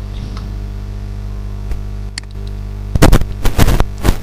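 Steady electrical mains hum from the recording setup, then about three seconds in a few loud clusters of sharp crackles and knocks.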